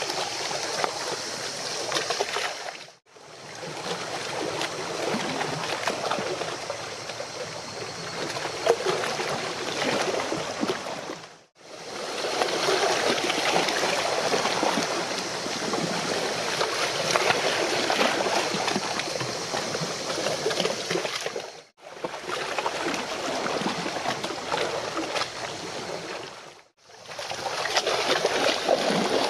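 Water lapping and splashing at the shoreline, a steady crackling wash, broken four times by brief fades to silence where clips are joined.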